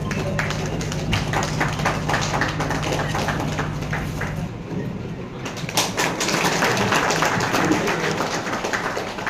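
Scattered handclapping from a small group of people, irregular claps that grow denser about five and a half seconds in, over a steady low hum that stops about four and a half seconds in.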